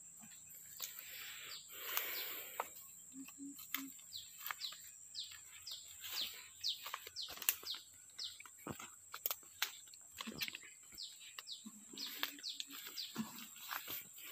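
Birds chirping over and over in short, falling chirps above a steady high insect drone, with scattered footsteps and rustles on dry ground.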